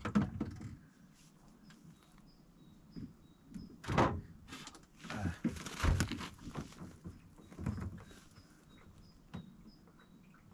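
Knocks, bumps and rustling from hands working inside the lower compartment of a fridge, with the loudest knocks about four and six seconds in. Faint short bird chirps sound in the background.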